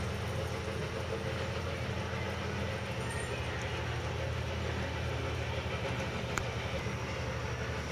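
Steady low rumble and hiss of a lit gas stove burner heating a pot of frying oil, with no break or change.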